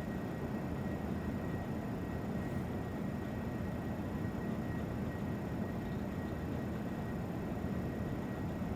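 Steady low rumble and hiss with a few faint, constant high whining tones, unchanging throughout: continuous equipment or room noise such as fans.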